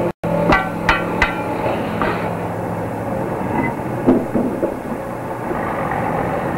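A machine runs with a steady drone while sharp metallic clanks and knocks sound: a crane handling a steel concrete bucket. There are three quick clanks in the first second and a half and a cluster of smaller knocks a few seconds later. The sound cuts out for an instant right at the start.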